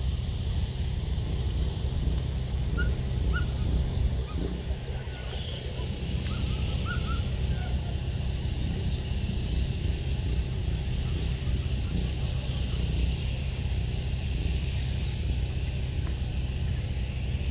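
Steady low wind rumble buffeting the microphone, with a few faint short chirps in the first half.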